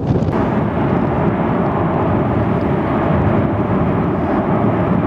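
Steady low roar of the erupting Fogo volcano near the source of its lava flows.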